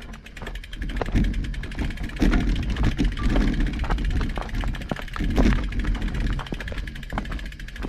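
A road bike clattering over a gravel trail, with many sharp clicks and knocks, over a heavy, steady rumble of wind buffeting the microphone.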